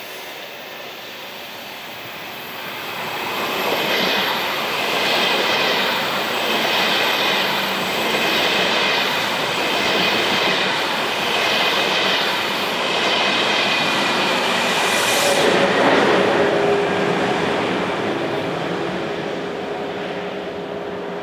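Electric train passing close by. Its rumble builds a couple of seconds in, then swells and eases in a regular rhythm about every second and a half, with a thin high squeal from the wheels. It slowly dies away over the last few seconds.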